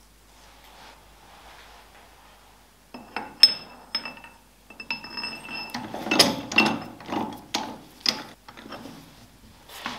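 Steel bar stock being fed into a lathe's three-jaw chuck and clamped with the chuck key: metallic clinks, scrapes and ratcheting clicks, some with a short metallic ring, starting about three seconds in and coming thickest around six to eight seconds.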